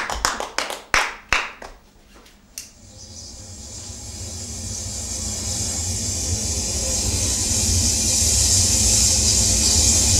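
A few last scattered claps die away. Then, about three seconds in, a steady rushing noise fades in and slowly grows louder.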